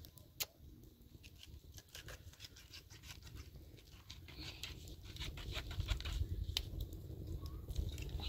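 Hands working food in a metal cooking pot: scattered light clicks and rustling. A sharp click comes about half a second in, and a low rumble grows louder in the second half.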